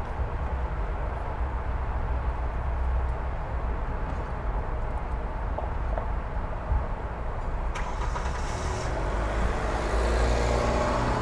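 Steady traffic rumble from a nearby freeway. A sharp click sounds a little before the end, and then a car passes close on the street, getting louder near the end.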